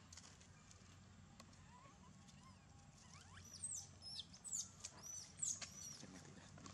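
A quick run of about six short, high-pitched squeaky chirps about halfway through, over a faint steady outdoor background.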